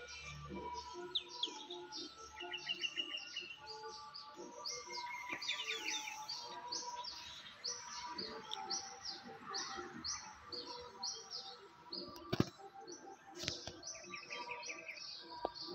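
Small birds chirping over and over, about two short chirps a second, with a few quick trills, over steady lower tones. Two sharp knocks near the end.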